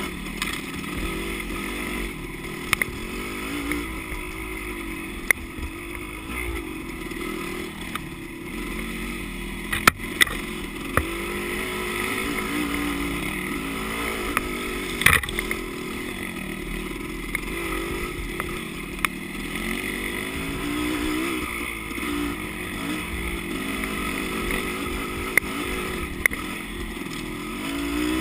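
Dirt bike engine running under load, its pitch rising and falling as the throttle opens and closes, with a scattering of sharp clicks and knocks over the rough trail.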